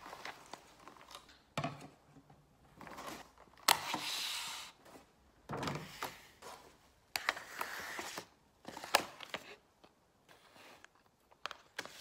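Plastic food packaging handled on a stone kitchen countertop: a clear tub and a plastic meat tray knocked down and pushed about, giving a string of knocks and thunks with short stretches of plastic rustling and crinkling.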